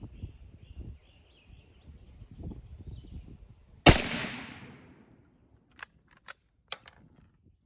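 A single rifle shot from a 6.5 mm Carcano M91/38 carbine, about four seconds in, with its report echoing away over about a second. A few light, sharp clicks follow.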